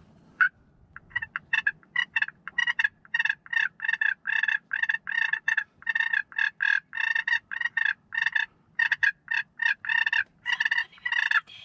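Turkey purring: a long, even run of short notes, about three a second, starting about a second in and running on for some ten seconds.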